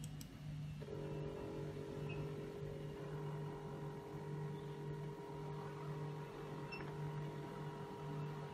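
Built-in strip printer of a hematology analyzer printing a QC graph: the steady whine of its paper-feed mechanism starts about a second in and carries on over a low hum.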